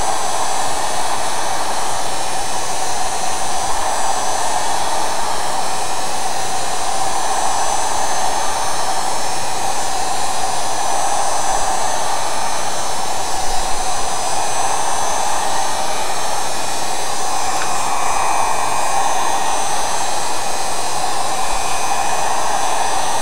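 Heat gun blowing steadily, a constant rush of hot air, used to warm the tablet's glass and soften the adhesive holding the digitizer.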